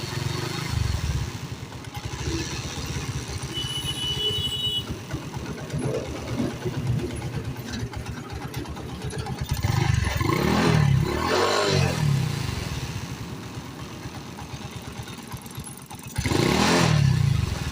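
Honda CD70 motorcycle's single-cylinder four-stroke engine idling with a steady beat, revved up and let fall back about ten seconds in and again briefly near the end. The engine is being run to reveal a fault in its sound.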